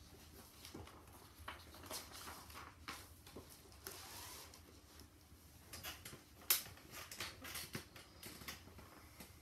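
Paper sheet music rustling as it is handled and set on a digital piano's music rest, with scattered light taps and clicks. A sharper knock about six and a half seconds in.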